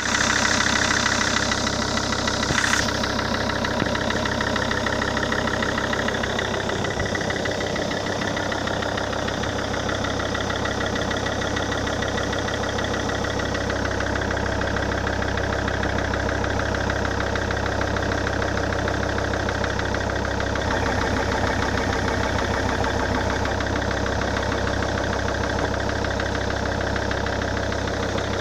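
SsangYong Rexton II engine idling steadily with a rhythmic knock, which the owner blames on a faulty major overhaul. A brief sharp click sounds about three seconds in.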